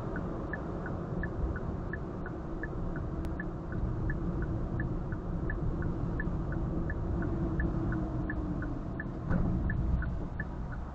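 Road noise inside a moving car: a steady low rumble of engine and tyres, with a faint regular ticking throughout and a louder thump about nine seconds in.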